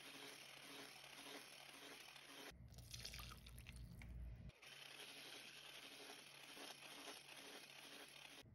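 Faint squishing and scraping of a wire hand whisk beating soft creamed butter in a glass bowl.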